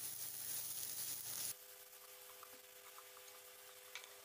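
Vegetables and grated paneer being stirred with a wooden spatula in a nonstick pan, with a faint sizzle. The hiss cuts off abruptly about a second and a half in, leaving a faint steady hum and a few light taps of the spatula.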